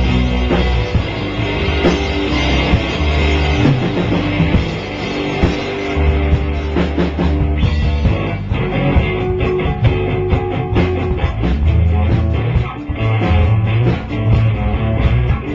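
Rock music with guitar and drums, with the drum hits coming thicker from about halfway through.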